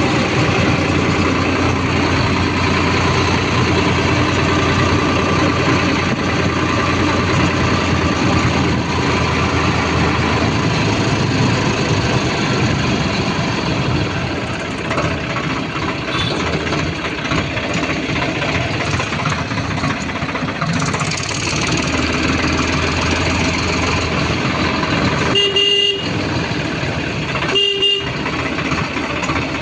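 Heavy vehicle engine running steadily, with two short horn toots near the end, about two seconds apart.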